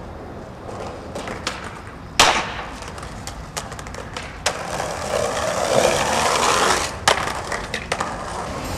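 Skateboard sounds: a loud board impact about two seconds in and several lighter clacks, then the wheels rolling steadily for a couple of seconds before another sharp clack and a few small knocks.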